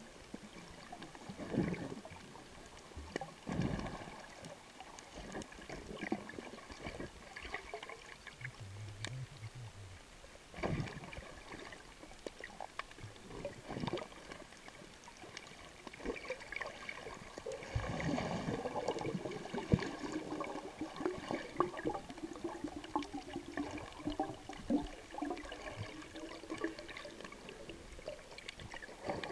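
Underwater sound picked up by a camera held under the surface: water moving and bubbling, with scattered clicks and several dull knocks. A denser stretch of bubbling comes about two-thirds of the way through.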